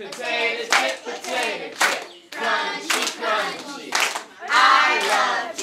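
A group of young voices singing together, with sharp hand claps about once a second keeping the beat.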